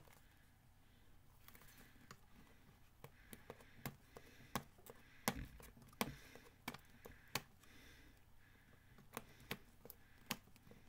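Fingers and nails picking at the edge of a small cardboard retail box, making scattered small clicks and scratches, with one duller knock about five seconds in.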